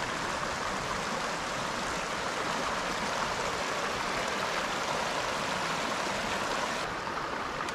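Steady rushing of a mountain creek's running water.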